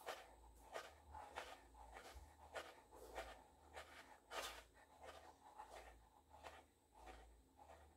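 Faint, soft rubbing and scuffing strokes, about one to two a second, from a foot in sheer pantyhose working against a dangling high-heeled pump, over a low steady hum.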